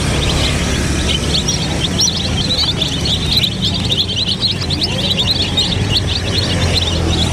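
A flock of domestic chicks peeping all together, many short high overlapping cheeps without a break, over a low steady rumble.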